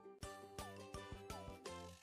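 Background music: a light, playful children's-style tune of quick, rhythmic notes with a few short sliding notes.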